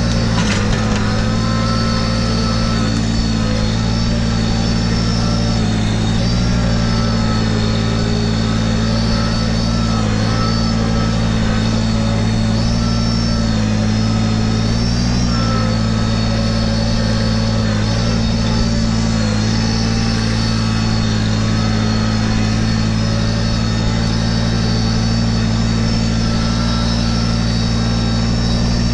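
Kubota BX1880 compact tractor's three-cylinder diesel engine running steadily as the tractor drives slowly over the forest floor, its pitch wavering a little. There is a brief knock about half a second in.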